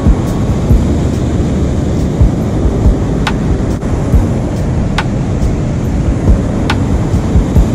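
Steady roar of rushing, churning water below a dam spillway, heard close with a dense low rumble. A sharp tick comes three times, evenly spaced.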